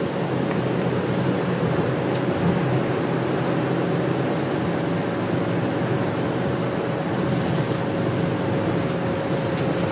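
Steady engine and road noise inside a moving bus's cabin, with a constant hum running through it and a few faint clicks of rattling.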